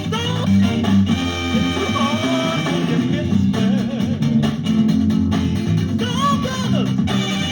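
A song played from a vinyl single: singing over guitar and bass with a steady beat.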